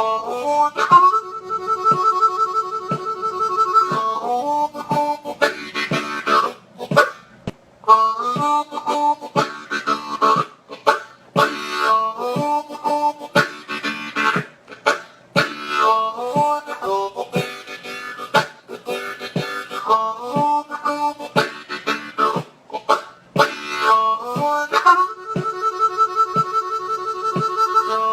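G diatonic harmonica played in second position (key of D): rhythmic blow and draw chords over the V chord of a blues, with a metronome ticking steadily at 60 beats per minute.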